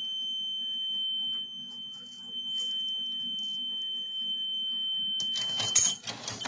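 Electronic buzzer of a homemade coin-and-note vending machine sounding one steady, high-pitched beep. The beep is the machine's signal that a 5-denar note has been registered and it is ready to dispense. Near the end there is a short clatter and the tone cuts off.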